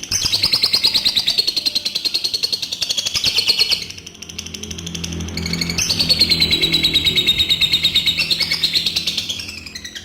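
Adult lovebird's long 'ngekek' song: a fast, continuous chattering trill of rapidly repeated high notes. It comes in two bouts of about four seconds each, with a short break about four seconds in.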